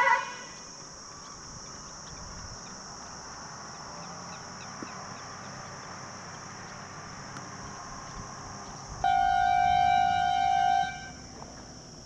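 A loud, steady, horn-like tone of one unchanging pitch sounds for about two seconds, starting about nine seconds in. Under it runs a constant high hiss with a few faint chirps.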